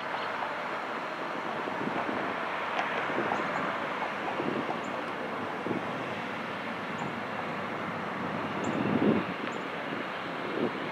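Freight train locomotives working at full throttle in notch 8, heard as a steady drone: an EMD SD70 with its 16-cylinder 710G engine and a GE C40-8 with its 7FDL16 engine. The sound swells briefly about nine seconds in.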